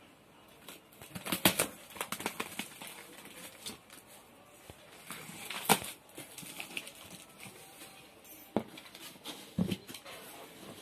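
Cardboard shipping box being opened by hand: packing tape tearing and stiff cardboard flaps rustling and crackling, with a few sharper snaps.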